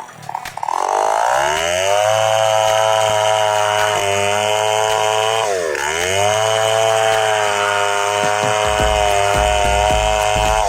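Two-stroke chainsaw revving up to full speed and running high, its pitch dipping briefly in the middle and climbing back. A run of low thumps joins in over the last couple of seconds.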